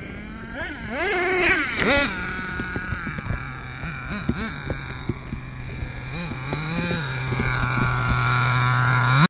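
Traxxas T-Maxx RC monster truck's HPI F4.6 two-stroke nitro engine revving in quick throttle blips, then holding a steady low note with a few short blips, and revving sharply again right at the end.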